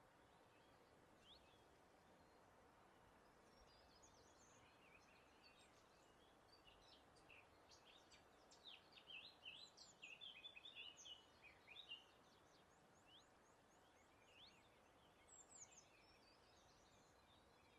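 Faint birdsong over a soft, steady breeze hiss: scattered quick chirps and trills, busiest in the middle with a flurry of calls, then a few more near the end.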